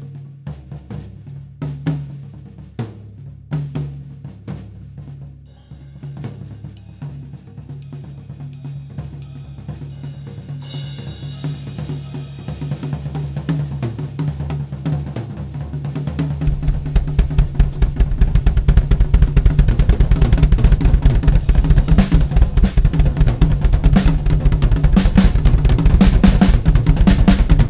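Gretsch drum kit played: spaced hits at first, building with cymbals from about ten seconds in, then a fast, loud, dense stream of bass drum, snare and cymbal hits from about halfway.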